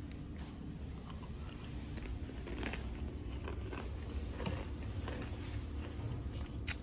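Someone chewing potato crisps, with faint irregular crunching.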